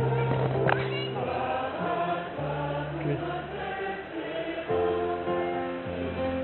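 A group of voices singing together in long held notes, music with no speech.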